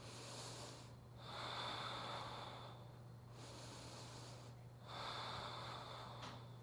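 A person breathing slowly, faint: four soft breaths of a second or more each, in and out, during a held yoga pose. A steady low hum runs underneath.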